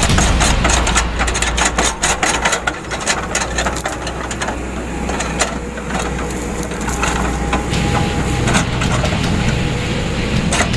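Wood cracking and crunching over the steady drone of a heavy machine's engine, with many sharp snaps: a machine tearing out or crushing tree roots.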